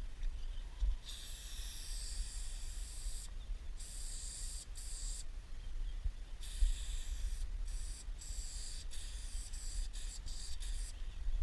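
Aerosol spray paint can hissing as paint is sprayed onto a train car's side. It comes in bursts of a second or several, broken by short stops whenever the nozzle is let go.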